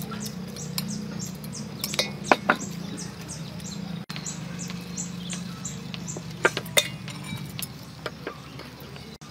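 Eating sounds: chopsticks clicking against a bowl, with a few sharper clicks about two and a half and six and a half seconds in, over faint repeated high chirps and a low steady hum.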